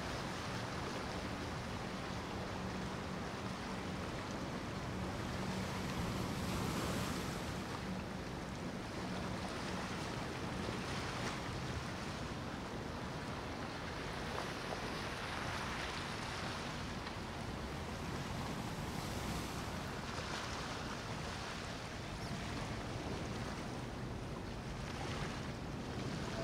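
Azimut flybridge motor yacht cruising past: a low, steady engine hum for the first ten seconds or so, under a constant wash of wind and choppy water that swells and eases.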